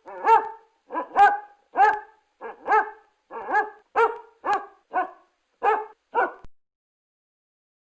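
A dog barking in a rapid series of about a dozen sharp barks, roughly two a second, stopping about six seconds in.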